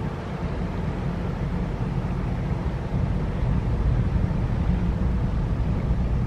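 Ro-Ro passenger ferry's diesel engines running as the ship pulls away, a steady low rumble that grows louder about three seconds in.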